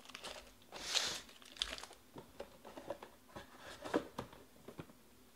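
Foil-wrapped trading card packs crinkling and rustling as they are pulled out of a cardboard hobby box, with light knocks of cardboard being handled. The rustles come in irregular bursts, loudest about a second in and again near four seconds.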